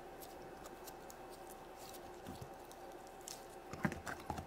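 Blue toy slime being pulled and squeezed out of a small plastic toy toilet: faint sticky squishing and crackling, with a few louder clicks near the end.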